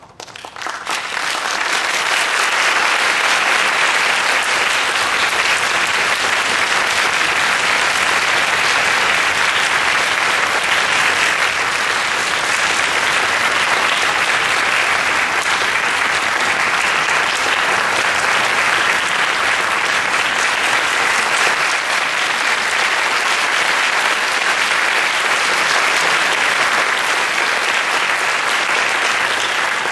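Audience applauding, the clapping swelling over the first couple of seconds and then holding steady.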